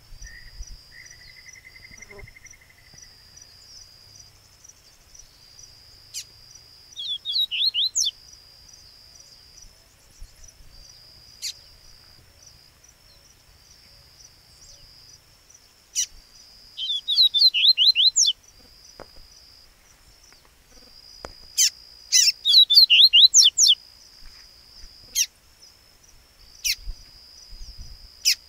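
A caged coleiro baiano seedeater singing in several short bursts of rapid, fast-repeated sweeping notes, with a steady high-pitched trill running underneath. A brief steady whistle sounds about a second in.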